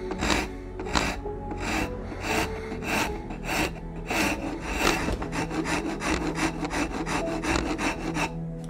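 Hand rasp scraping across a wooden gunstock pattern in repeated push strokes, shaping the nose of the comb. The strokes come about two to three a second, then turn into quicker, shorter strokes about halfway and stop just before the end. Background music plays underneath.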